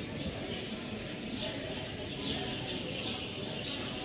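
A large flock of small birds roosting in a tree, chirping continuously in a dense chorus of short, overlapping high calls, over a steady low background hum.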